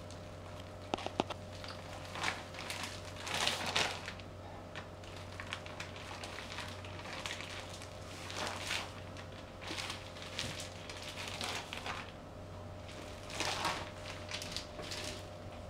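Feet in rubber flip-flops treading on cream-filled pastries on a plastic sheet: soft squelching of the cake and crinkling of the plastic in separate bursts every second or two, with a couple of sharp clicks about a second in. A faint steady hum lies underneath.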